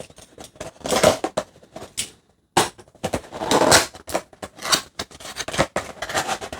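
Cardboard and paper packaging of an action-figure box being opened by hand: irregular rustling, scraping and crinkling of paper and card, in uneven bursts with a short pause about two and a half seconds in.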